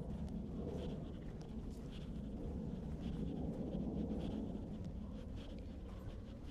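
Footsteps scuffing along a path at a steady walking pace, a short sound about every second and a bit.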